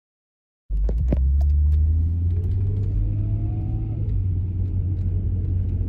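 Steady low rumble of a 2001 Volkswagen Eurovan Westfalia driving, heard from inside the cabin: road and engine noise that starts abruptly a moment in, with a couple of clicks just after it begins.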